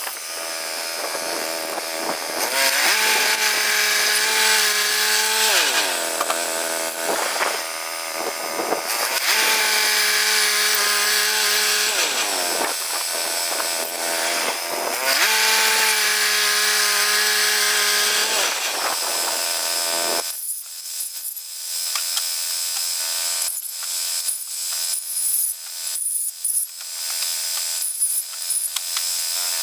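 Woodland Mills HM122 portable bandsaw mill running and sawing through a red cedar log. The engine's pitch sags and recovers about three times. About two-thirds of the way through, the sound turns thinner and choppy.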